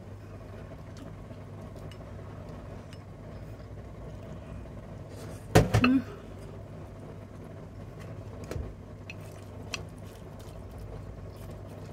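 Quiet eating at a table over a steady low hum: a few faint clicks of chopsticks and dishes, and one short, louder voice-like sound about halfway through.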